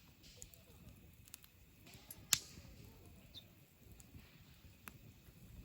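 Wood campfire crackling softly, with a few scattered sharp pops, the loudest a little over two seconds in.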